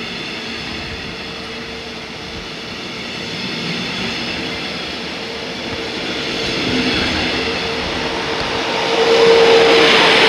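Red DB Regio double-deck passenger coaches rolling past along the platform. The wheels keep up an even rolling noise under a steady hum that grows louder near the end.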